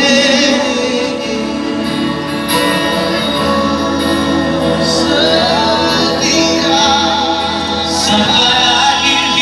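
Live worship music: a band holding sustained chords with singing over it.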